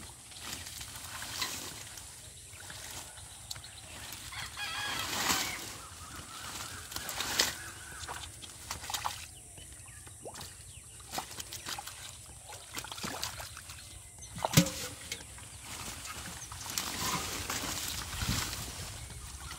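Repeated splashing and rustling as water hyacinth is pulled by hand out of shallow muddy water, with a loud splash near the middle. Chickens clucking and a rooster crowing can be heard in the background.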